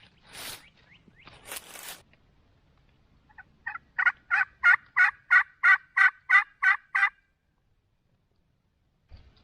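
A series of about a dozen turkey yelps, evenly spaced at roughly three a second, starting faint and growing louder, typical of hen-turkey calling. Before it come two short bursts of noise.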